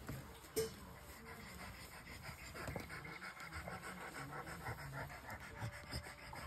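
A dog panting steadily, with one sharp knock about half a second in.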